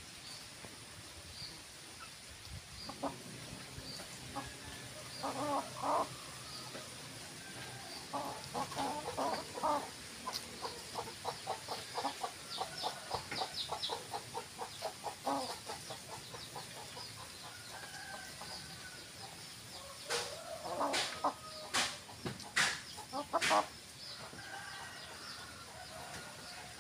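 Domestic hens clucking while they forage, with scattered short calls and a run of quick clucks in the middle. Near the end come a few louder calls mixed with sharp clicks.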